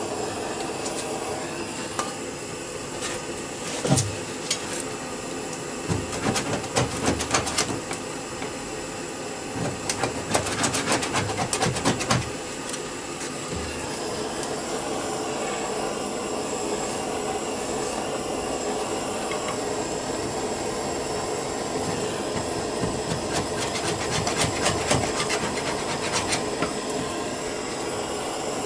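Handheld gas blowtorch burning with a steady hiss as it heats old underseal on a car's underside to soften it. Over it come bursts of rapid rasping as a paint scraper strips the softened underseal off the metal, a few seconds in, around the middle and near the end, with one sharp knock about four seconds in.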